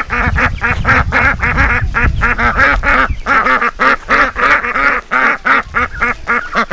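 A small flock of black ducks quacking close by, a rapid run of short calls, several a second, overlapping without a break.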